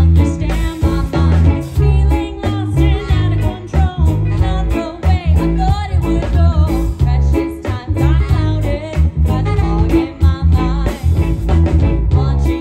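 A live band playing a song: singing over guitar, bass and drum kit, with a strong low bass line and a steady drum beat.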